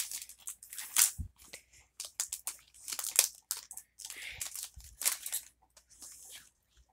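Foil Pokémon booster-pack wrapper crinkling and tearing as it is ripped open and the cards are slid out, in a run of irregular sharp crackles.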